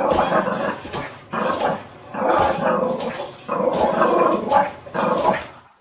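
A dog making about five drawn-out, growly vocalizations in quick succession, then cutting off abruptly near the end.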